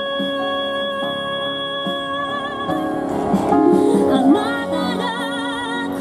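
A woman singing a ballad live into a microphone over backing music: she holds one long high note until about two and a half seconds in, then moves into shorter phrases sung with wide vibrato.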